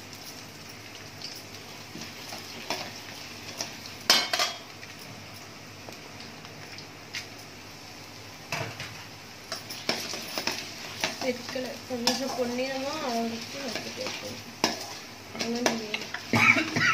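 Lentils and cumin frying in hot oil and ghee in a stainless steel kadai, sizzling steadily. A perforated steel ladle stirs and scrapes against the pan with scattered clicks and knocks, the sharpest about four seconds in and near the end.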